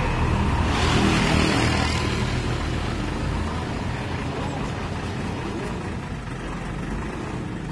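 Diesel engine of a Hino Ranger fuel tanker truck running as the truck moves slowly into position. There is a louder rush of noise about a second in.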